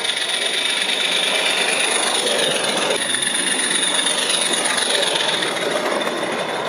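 Garden-scale live-steam locomotive running along the track, with steam hiss and wheel noise, growing louder as it approaches and passes close by about six seconds in.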